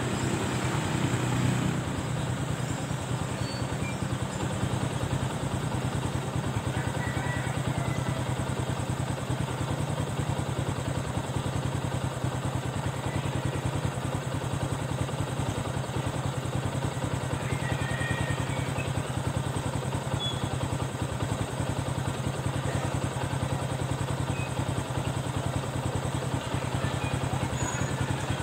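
Small vehicle engine idling steadily: a low, even hum with a rapid regular beat.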